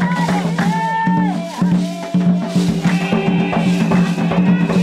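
Drumming in a steady rhythm, with voices singing over it.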